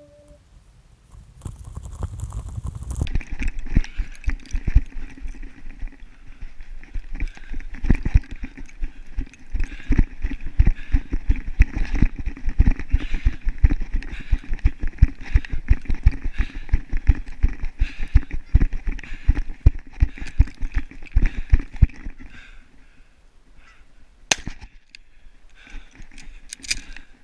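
Canada geese honking together for about twenty seconds, over rapid low thumping. It fades near the end, where two sharp cracks are heard.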